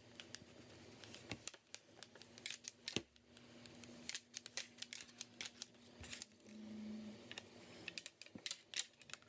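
Faint, scattered small clicks and rustles of a dry microfiber cloth being handled and wiped over a laptop screen.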